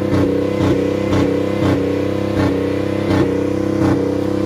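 Car engine held flat out on the rev limiter by a brick on the gas pedal, running at a steady high pitch with a brief stutter about every 0.7 seconds as the limiter cuts in. The engine is running with its coolant drained.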